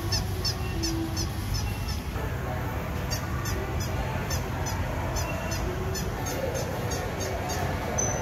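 A toddler's squeaky sandals squeaking with each step, a short high chirp about three times a second, pausing briefly about two seconds in.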